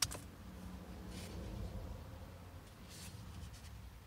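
Faint handling noises of a paper microwave-meal bowl and a metal fork: a click at the start, then a few soft scratchy rustles, over a low steady rumble.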